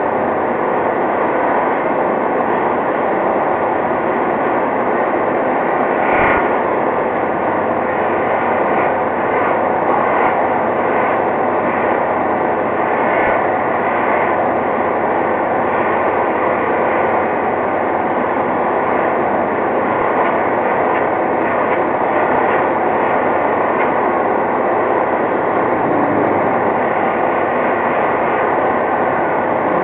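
Four-axis ball-screw polishing machine with FANUC servo controls running at half speed, giving a steady, loud machine noise, with a couple of brief knocks.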